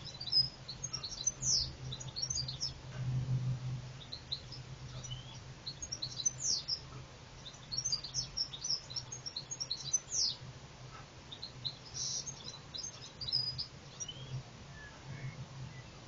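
Small songbirds twittering: clusters of short, high chirps and quick sweeping notes that come and go every few seconds. A steady low hum runs underneath.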